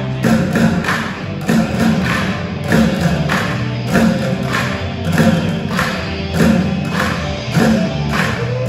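A group of students drumming on upturned plastic buckets with drumsticks in a steady, repeating beat.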